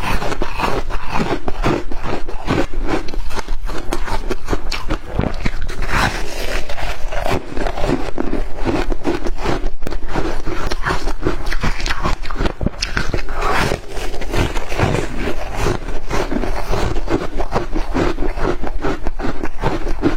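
Shaved ice being bitten and chewed close to the microphone: continuous dense crunching and crackling, with no pauses.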